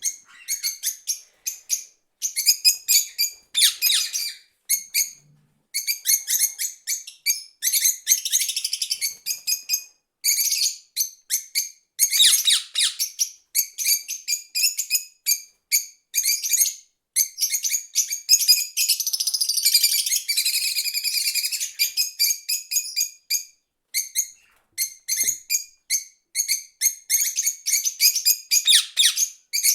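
Several small birds chirping and twittering rapidly in quick high-pitched runs, with brief pauses between bursts.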